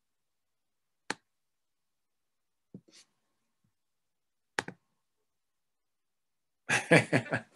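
Three short, isolated clicks, spaced a second or two apart, over audio otherwise cut to dead silence by a video call's noise suppression; a person's voice breaks in near the end.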